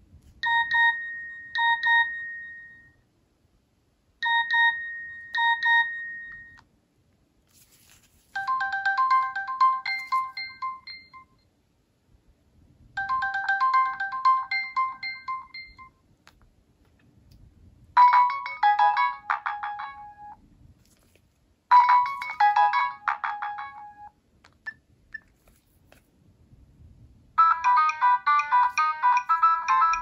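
Nokia 3650 ringtones previewed one after another through the phone's small speaker as the tone list is scrolled. First a short tone of paired beeps plays twice, then two more short melodies each play twice, and a busier, continuous melody starts near the end.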